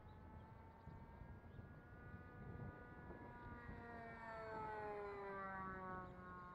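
Kaos 60 radio-controlled model airplane flying past overhead, its motor note swelling and dropping steadily in pitch as it goes by, with faint wind rumble on the microphone.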